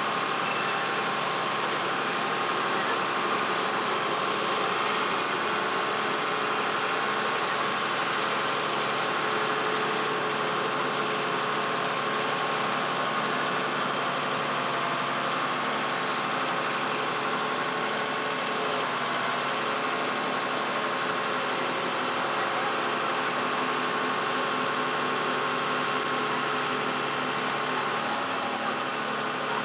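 An engine running steadily at an even idle, with a constant hum and no changes in speed.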